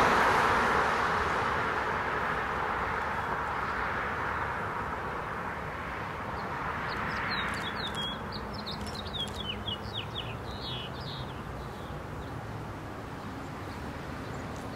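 Traffic noise from a passing vehicle fading away slowly. Midway, a bird sings a run of short, falling chirps.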